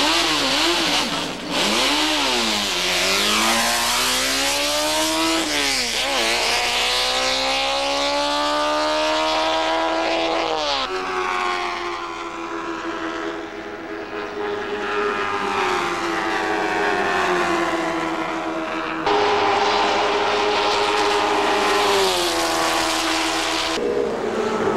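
Brabham-Honda BT18 Formula 2 car's four-cylinder Honda engine accelerating hard. The revs climb and drop back with each upshift, about four times in the first dozen seconds, then it holds a steadier high note at speed, louder again near the end.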